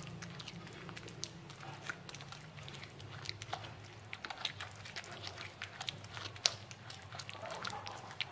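Hand pestle grinding and mashing wet peanut-and-tomato sambal in a clay mortar, giving irregular knocks and scrapes of the pestle against the earthenware.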